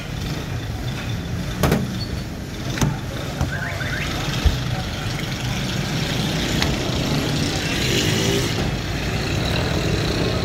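Steady rumble of street traffic with background voices, broken by a few short knocks.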